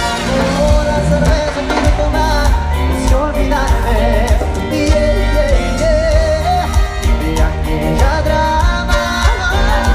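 Live amplified cumbia band playing a song with a lead singer's vocal over a steady beat of heavy bass and drums.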